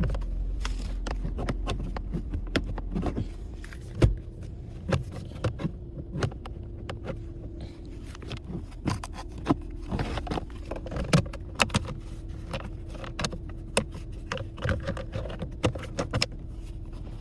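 Hard plastic interior trim of a car being handled and refitted by hand: a busy run of irregular clicks, taps and rattles, with a sharp knock about four seconds in. A faint steady hum sits underneath.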